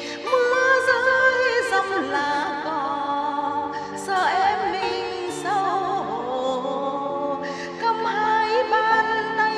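Live singing of a slow song: a solo voice sings sustained phrases with wide vibrato over steady held backing chords.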